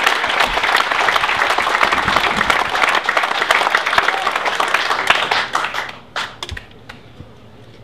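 Crowd applauding with many hands clapping, dying away about five and a half seconds in to a few last claps.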